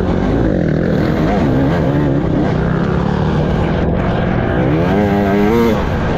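Off-road dirt bike engine, heard from an on-board camera, with the revs rising and falling as the throttle opens and closes over a steady rumble of wind and track noise. Near the end the revs climb quickly, then cut off sharply as the throttle is rolled off or a gear is shifted.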